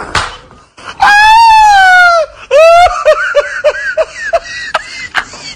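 Man laughing hard: a long, high-pitched wailing laugh about a second in, then a quick run of short laughs.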